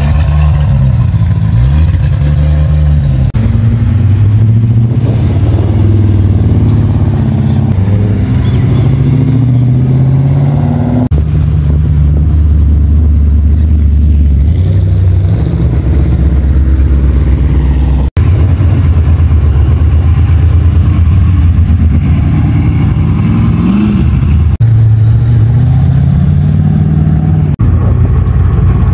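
Car engines idling and being revved, the pitch rising and falling with each blip of the throttle and holding steady in between. The engine sound changes abruptly three times.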